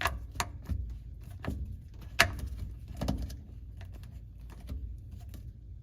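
A handful of sharp clicks and knocks, the loudest about two seconds in, from bolts being put back in and tightened on a newly mounted garbage disposal under a sink, over a steady low hum.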